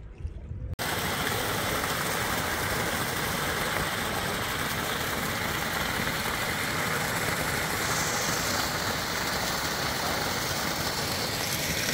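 A thick stream of water from a pool spout pours onto a bather's head and shoulders and splashes into a thermal pool: a loud, steady rushing splash that starts abruptly about a second in.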